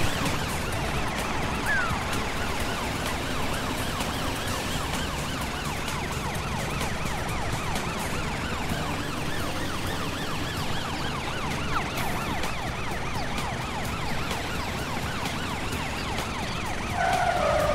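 Cartoon emergency-vehicle sirens wailing continuously in fast, repeated rising-and-falling sweeps. Near the end a louder held tone joins in.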